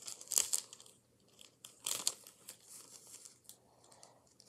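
Strips of clear adhesive tape crinkling and crackling as they are handled and pressed onto paper, with louder crackles about half a second in and again around two seconds.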